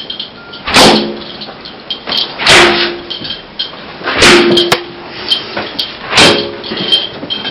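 A many-tailed leather whip (flogger) lashing a bare back four times, one sharp crack about every two seconds.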